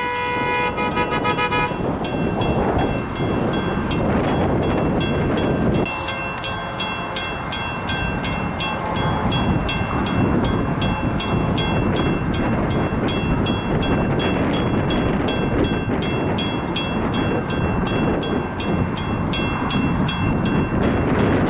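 A train horn sounding a chord that cuts off about two seconds in, then a train passing close by with a steady, even clatter of wheels over the rail joints, roughly three clicks a second.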